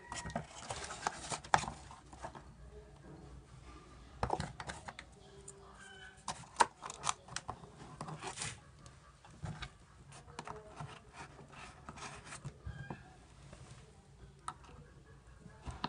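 Hands fitting a bent steel-wire landing gear into a wooden mount on a foam-and-tape model plane fuselage: irregular light clicks, taps and scrapes of wire against wood and foam, with tape and foam rustling.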